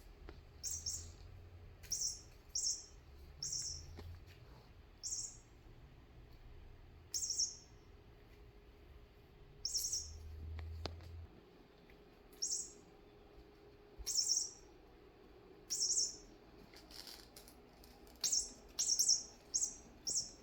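A string of short, high, bird-like chirps, about one every second or two, coming more quickly toward the end.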